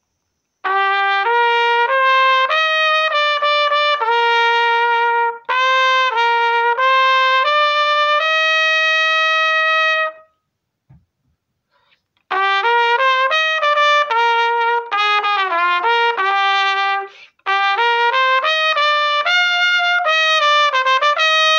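Chinese-made pocket trumpet playing a baseball cheer-song melody in four short phrases of tongued notes, with a long held note ending the second phrase and a pause of about two seconds halfway through.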